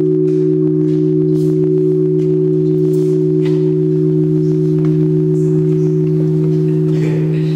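Large bronze tower bell humming, a steady low ring of two held tones with no new strike.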